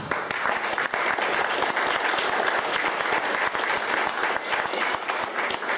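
An audience applauding, many hands clapping together; it starts abruptly as the talk breaks off.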